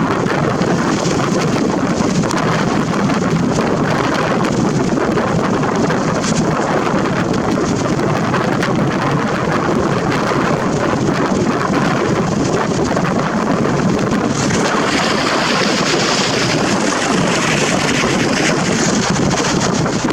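Loud, steady wind noise buffeting the built-in microphone of a Nikon Coolpix P900 camera.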